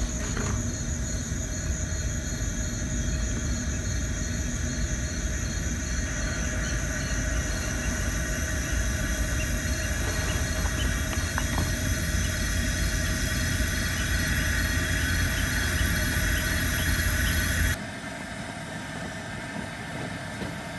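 Outdoor ambience of wind rumbling on the microphone, with insects calling in a steady high drone and a regular pulsing chirp. About 18 seconds in it cuts to a quieter, even hiss from the Coleman gasoline camp stove's burner under a coffee percolator.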